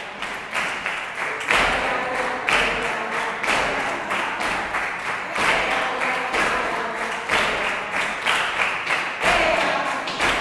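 A group clapping flamenco palmas in a steady rhythm, with voices singing along; it swells up over the first second or two.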